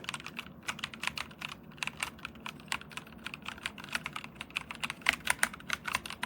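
Typing on a DIERYA T68SE 60% mechanical keyboard with brown switches: a quick, uneven run of keystroke clicks, with a few louder strokes about five seconds in.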